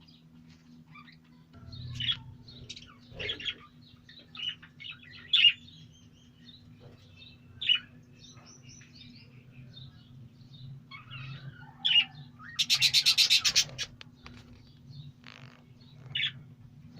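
A colony of lovebirds and budgerigars chirping: scattered short, high calls throughout, with a rapid burst of chattering lasting about a second, a little past the middle, the loudest part.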